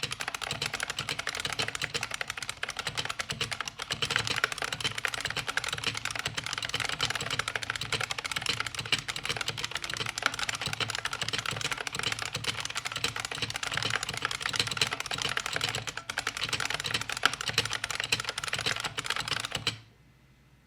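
IBM Model M buckling-spring keyboard typed on fast, a dense unbroken stream of loud clicky keystrokes. The typing stops suddenly near the end.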